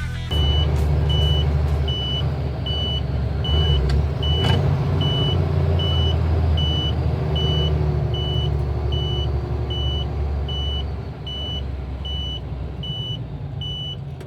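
A truck's engine runs steadily under a high electronic warning beep that repeats evenly, about every three-quarters of a second.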